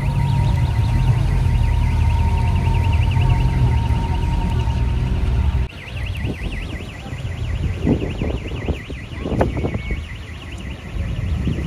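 A fast-warbling electronic alarm tone repeating over a deep, steady low rumble. A little past halfway the rumble drops away abruptly and the warble breaks off for about a second, then resumes.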